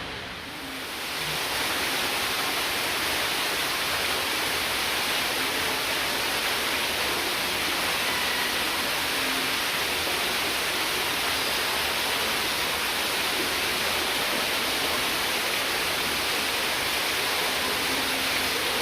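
Steady, even rushing noise that swells about a second in and then holds level.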